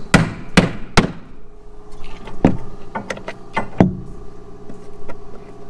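Hammer blows on wood framing: three sharp strikes in the first second, then a few duller, weaker knocks around the middle.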